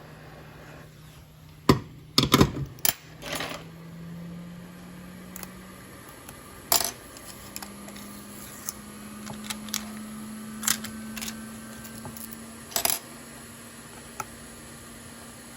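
Sharp clicks and light metallic clinks from handling computer hardware during a hard drive removal. A burst of loud ones comes about two seconds in and more follow at scattered intervals, over a steady low hum.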